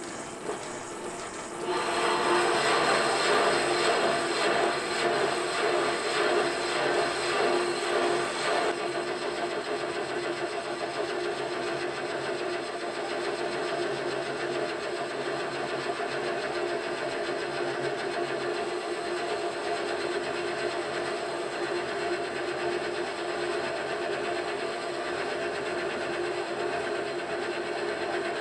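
Metal lathe turning in reverse while a parting tool cuts fin grooves into a cast iron cylinder: a steady machine hum with the noise of the cut, smooth and free of chatter now that the vibration has gone. The cutting noise is louder from about two seconds in until about nine seconds, then settles to a steady lower level.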